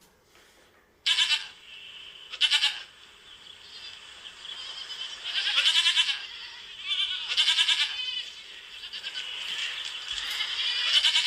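Goats bleating in a run of loud, wavering calls. The first comes about a second in, and they are most frequent in the second half.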